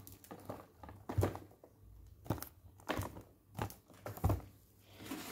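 Boxed cosmetic gift kits being handled and set down: a series of about five light knocks, with some crinkling of packaging.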